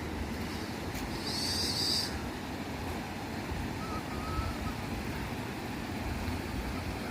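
Waterfall rushing as a steady roar of falling water. A brief high whistling call sounds about a second in.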